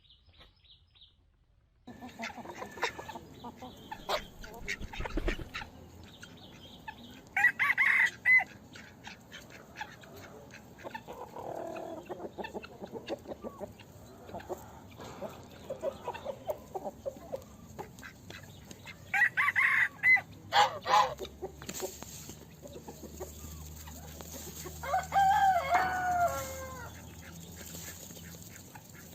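Chickens clucking and calling, starting about two seconds in, with short loud squawks around eight and twenty seconds in and a long rooster crow about twenty-five seconds in.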